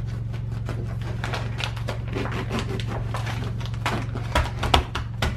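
Knife sawing through the crust of a round bread loaf on a plastic cutting board, with a fine run of crackling crunches. From about four seconds in, a bag of brown sugar is pounded on the wooden table in a series of dull thumps, breaking up the lumps. A steady low hum lies underneath.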